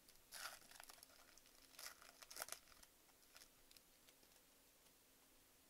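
Wrapper of a 2021 Bowman baseball card pack crinkling and tearing as it is ripped open, in several short bursts over the first two and a half seconds.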